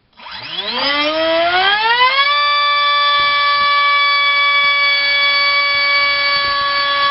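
Assault 450 3800kV brushless helicopter motor spinning a 4.5x4.5 propeller on a thrust stand. Its whine rises over about two seconds as it spools up, then holds at one steady high pitch under load, at around twice the motor's recommended power.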